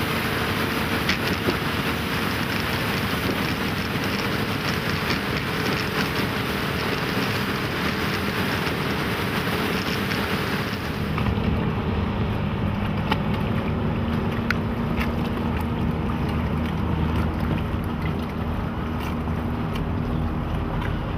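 Boat running at speed, its Suzuki 225 hp four-stroke outboard humming under a steady rush of wind on the microphone and water along the hull. About halfway through the wind hiss drops away and the low engine hum stands out more.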